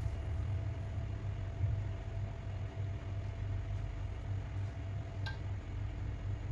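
Steady low hum with a faint steady whine from a portable electric cooktop running under a simmering pan, with a single short click about five seconds in.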